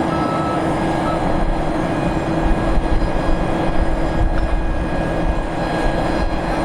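Airbus A400M's four Europrop TP400 turboprop engines running, a loud, steady propeller and turbine drone with several steady tones held over a rushing noise.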